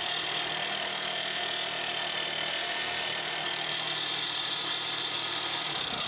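Impact wrench spinning a blade-sharpener attachment held with light pressure on a lawnmower blade, running steadily with a whirring hum and a grinding hiss.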